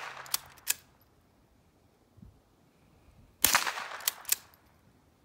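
One shot from a Remington Model 12A pump-action .22 rimfire rifle about three and a half seconds in, with a short ringing tail. Two quick clicks of the pump slide being worked back and forward come right after it, and two more near the start follow the shot just before.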